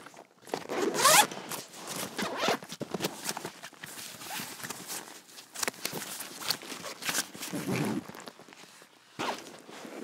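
A backpack being handled: its zipper is pulled in a quick rising zip about a second in. Irregular rustling and small clicks from the bag follow, with another heavier burst of handling near the end.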